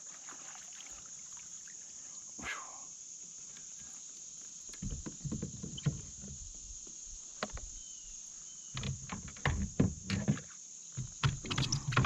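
Irregular knocks, thuds and clatter on a fishing kayak, starting about five seconds in and growing busier near the end, over a steady high drone of insects.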